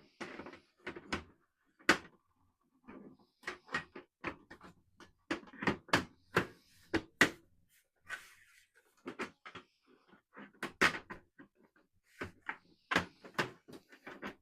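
Irregular clicks, knocks and rattles of an Alienware Aurora desktop's side cover being worked back onto the case, with a few louder snaps and knocks and some scraping between them.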